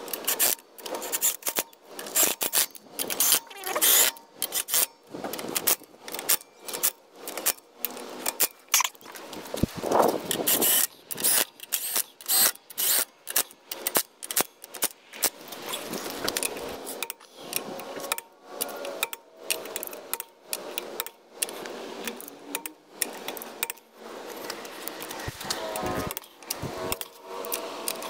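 DeWalt cordless impact driver running lug nuts onto an alloy wheel in many short bursts, with the clink of metal sockets and nuts.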